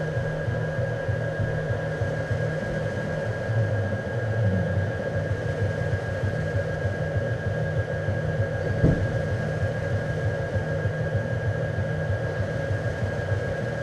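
A steady low droning hum with a throbbing pulse underneath and a thin, steady high tone above it. There is a single short knock about nine seconds in.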